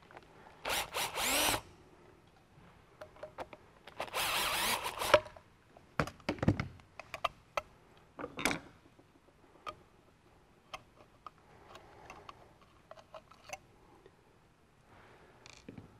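Cordless drill-driver running in two short bursts of about a second each, turning screws on a floor edger's housing, followed by scattered light clicks and knocks of metal parts being handled.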